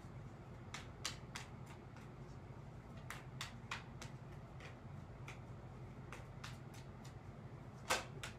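A deck of tarot cards being shuffled by hand, giving scattered soft clicks and taps as the cards slide and knock together, the loudest near the end, over a steady low hum.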